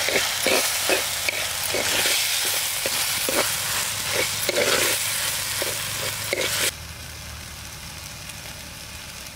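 Tomatoes and onions frying in oil in a pot over a wood fire, sizzling while a metal ladle stirs and scrapes through them with frequent clicks. About two-thirds of the way in, the sizzle drops suddenly to a softer, steady hiss.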